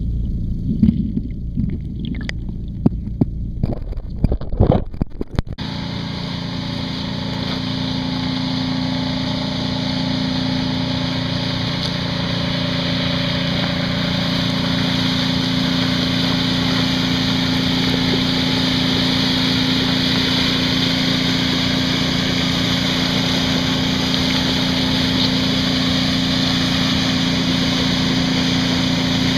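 Muffled underwater rumble with a few sharp knocks, then, after about five seconds, a steady rush of churning water welling up and splashing at the surface, with a steady low hum beneath it.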